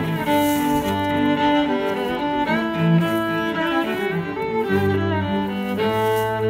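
Background music of bowed strings playing long held notes.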